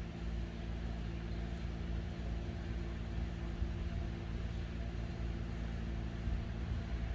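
A steady low mechanical hum with a rumble underneath, like an engine or motor running at an even speed, with no change in pitch or level.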